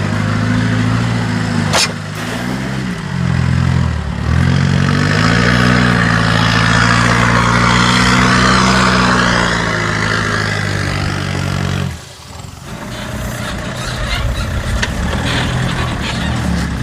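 Off-road 4x4's engine under load on a trail obstacle, revs rising and falling, then held high for several seconds. About twelve seconds in it drops off suddenly to a lower, steadier run.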